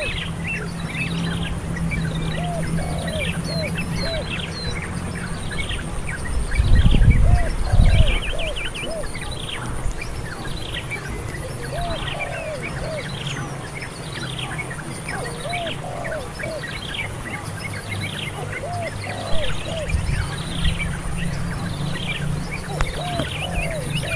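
Birds calling: a steady run of short, falling chirps, with a lower, looping call given in twos and threes every few seconds, over a thin high insect buzz. A low rumble, likely wind on the microphone, comes about seven seconds in.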